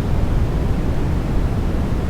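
Steady sleep white noise: an even, deep rushing hiss weighted toward the low end, with no change or pattern.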